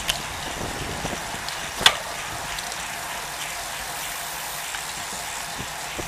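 Steady hiss of wind and tyre noise on a bike-mounted camera riding in a group of road bicycles, with one sharp click about two seconds in.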